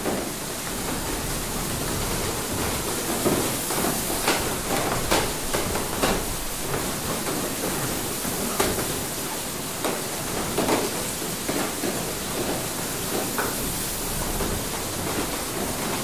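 Water mill heard from inside: a steady rush of running water with irregular knocks and clatter from the mill machinery.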